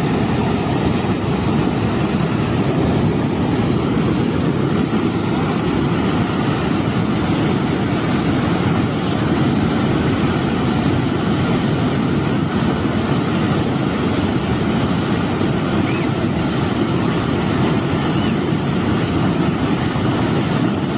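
Flash-flood water after a cloudburst, rushing down in a torrent: a loud, steady, unbroken rush that is heaviest in the low range.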